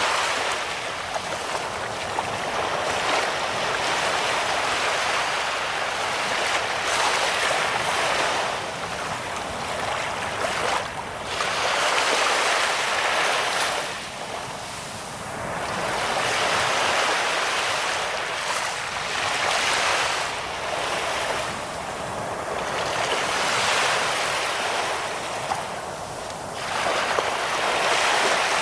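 Sea waves breaking on a sandy beach: a continuous wash of surf that swells and eases every few seconds as each wave comes in and draws back.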